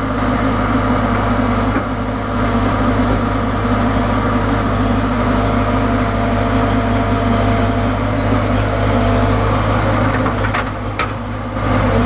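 ACE backhoe loader's diesel engine running steadily under load as its backhoe arm digs and dumps soil, heard close up from the operator's seat.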